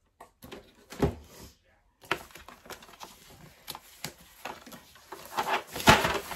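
A cardboard box and a plastic storage tray of small bead containers being handled and unpacked: irregular knocks, clicks and rustling, with the loudest knock just before the end.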